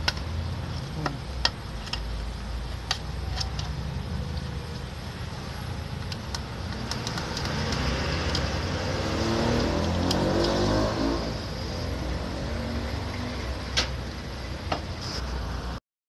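Scattered clicks and knocks of a plastic microwave control panel and metal casing being handled, over a steady low hum. About eight seconds in, a motor vehicle engine rises in pitch, then falls away.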